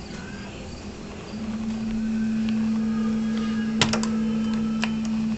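Dishwasher running: a steady motor hum that gets louder about a second in and holds, with a few sharp clicks a little past the middle.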